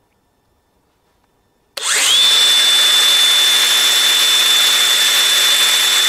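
DeWalt DCG405B 20V brushless 4-1/2-inch cordless angle grinder switched on about two seconds in, spinning up within a fraction of a second to a steady high whine and running free with no load. It measures about 92.7 dB at 3.5 feet.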